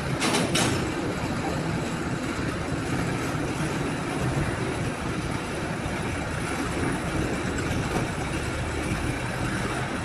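Overhead crane hoist running steadily as it carries a heavy timber slab on slings: a continuous mechanical rumble, with a brief rattle near the start.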